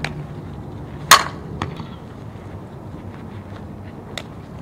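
A softball bat hitting a pitched softball once, a sharp crack about a second in, followed by a couple of fainter knocks.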